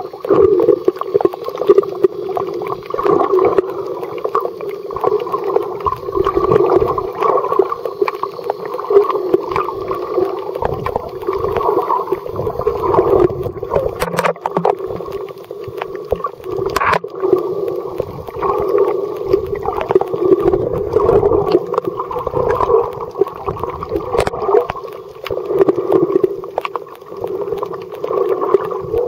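Muffled underwater noise picked up by a submerged camera: a steady watery rush and gurgle that swells and fades every couple of seconds, with a few faint clicks.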